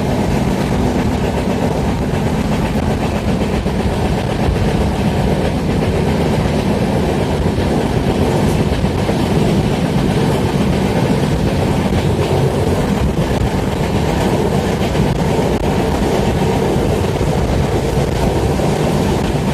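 Panvel–Nanded Express train running through the station without stopping: steady, loud noise of its wheels on the rails as it passes at speed.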